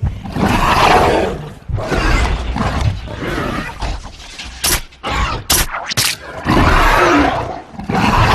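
Movie-creature sound effects of the Indoraptor dinosaur: a series of loud rough growling roars and snarls, with three short sharp snaps about halfway through.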